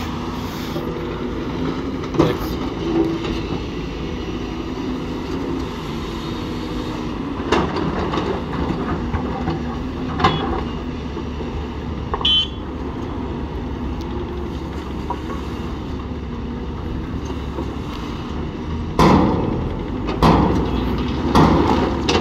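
Heavy diesel engines of dump trucks and a hydraulic excavator running steadily. Sharp knocks and clanks come now and then, with several close together near the end.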